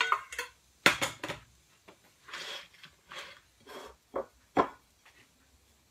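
Metal spoon and dishes clinking and knocking against a metal künefe plate, with soft scraping between the strikes, as butter is spread in the plate.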